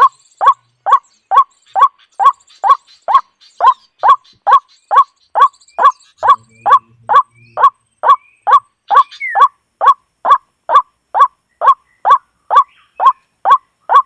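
A bird's short call repeated over and over at an even pace, about two and a half calls a second, with fainter high chirps from other birds behind it.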